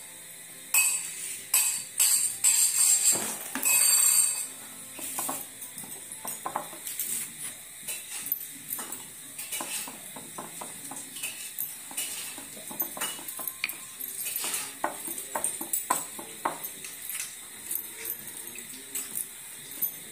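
Bangles on a woman's wrists clinking and jingling in short irregular clicks, with light knocks on a wooden rolling board, as stuffed paratha dough is pressed and shaped by hand. The loudest run of clinks comes about one to four seconds in, then softer ticks.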